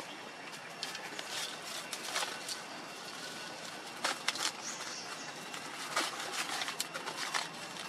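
Dry leaf litter crackling and rustling as monkeys move and grab over it, in a run of sharp irregular crackles over a steady forest hiss.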